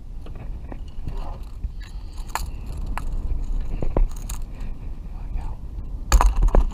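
Handling noise on a fishing kayak: scattered clicks, knocks and scrapes of a rod and tackle being moved and stowed, over a steady low rumble. A burst of louder thumps comes near the end.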